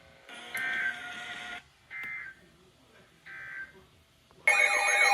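Emergency Alert System SAME data bursts: three short buzzy bursts of digital tones about a second apart. Near the end the loud, steady EAS attention tone starts.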